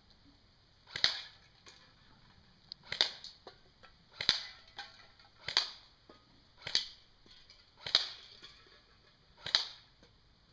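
G36 airsoft rifle firing single shots on semi-auto, seven sharp cracks spaced about one to two seconds apart, each trailing off briefly.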